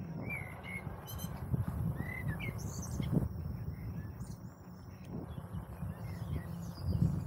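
Birds chirping in short scattered calls over the low rumble and occasional rattle of a bicycle rolling along a path.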